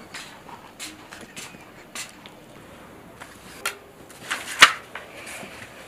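Small paper and desk handling sounds: a pen writing in a notebook and book pages being turned, with scattered light ticks and a sharp knock or click about four and a half seconds in that is the loudest thing heard.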